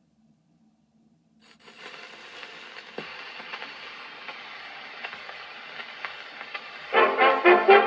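Crackle and hiss of a 78 rpm record's lead-in groove on a gramophone, starting about a second and a half in with scattered clicks. About a second before the end, a brass band starts the record's introduction.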